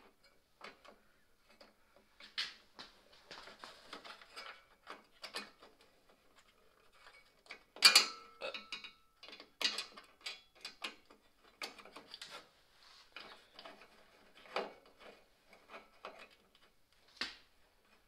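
Irregular small clicks, taps and scrapes of a screwdriver starting screws while a Corvette grille is worked into place, with one louder knock about eight seconds in.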